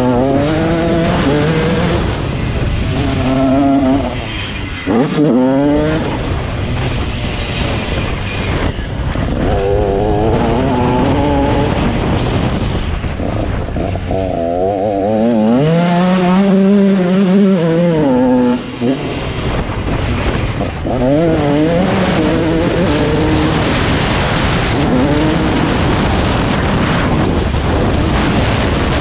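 Two-stroke KTM 150SX motocross bike engine revving up and dropping off again and again, its pitch climbing with each burst of throttle and falling back between them.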